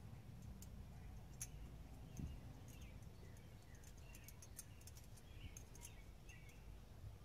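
Near silence: faint scattered clicks and a few faint short chirps over a low background hum.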